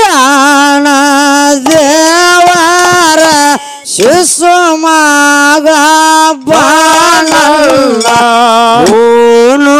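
A solo voice singing a North Karnataka dollina pada folk song in long held notes with wavering, ornamented pitch, with short breaks between phrases.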